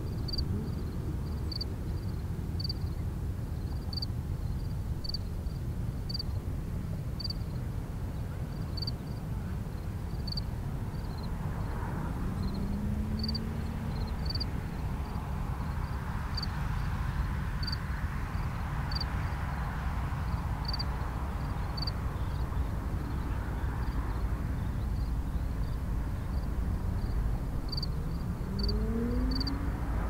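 Steady low outdoor rumble with an aircraft passing over; its noise swells to a peak about midway, then fades, and a rising engine tone comes near the end. A faint high tick repeats about every 0.7 seconds.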